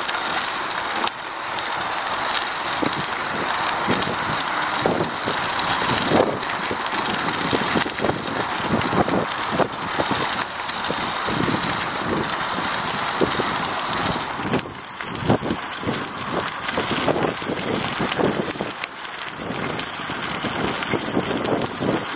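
Bicycle tyres rolling over a gravel road: a steady crunching hiss with many small clicks and knocks.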